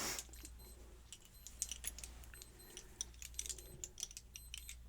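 Light, irregular metallic clicks and clinks of small lock parts and tools being handled, with a steady low hum underneath.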